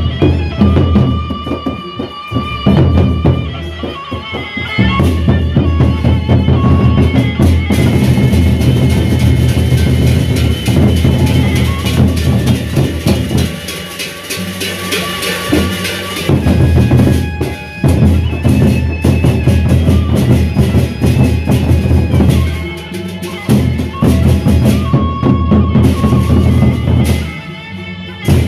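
Gendang beleq ensemble playing live: large double-headed Sasak barrel drums beaten with sticks in a driving rhythm, with steady high tones of the melody and metal percussion above. The drumming thins out briefly a few times, around a third of the way in, midway and near the end, before coming back in full.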